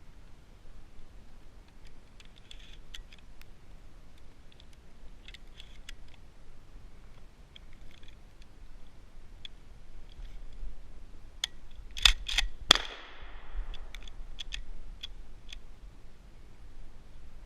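Metallic clicks and clacks of a shotgun's action and shells being handled, with a quick run of louder clacks about twelve seconds in. No shot is fired.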